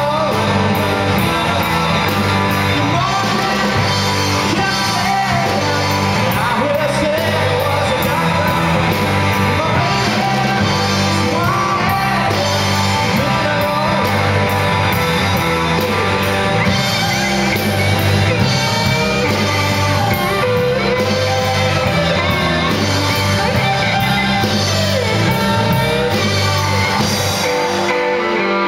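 Rock band playing live: electric guitars and a drum kit with cymbals keeping a steady beat, with a voice singing over them.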